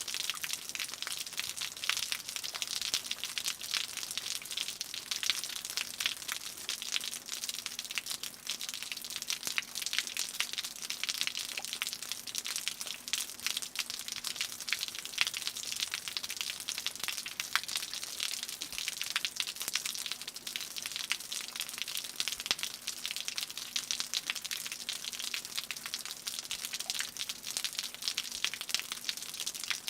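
Rain dripping and pattering off a roof: a dense, irregular patter of drops over a steady hiss.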